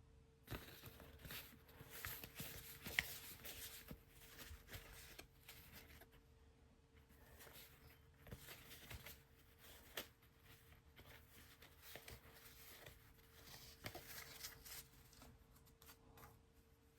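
Faint rustling, sliding and light clicking of cardboard trading cards being handled and flipped through one by one, with a sharper click about three seconds in and another about ten seconds in. A faint steady hum sits underneath.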